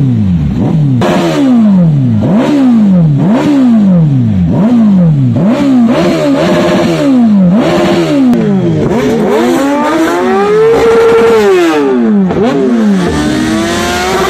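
A vehicle engine being revved repeatedly in quick throttle blips, about one a second, each rising sharply in pitch and then falling away. About two-thirds of the way through, the revs climb more slowly and are held high for a moment before dropping, and then the blips start again.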